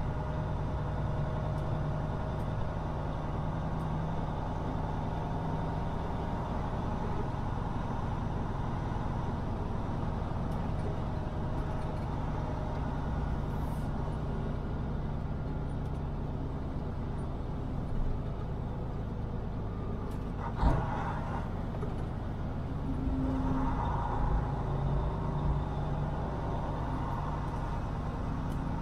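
Semi truck's diesel engine running steadily at low speed, with a short thump about twenty seconds in.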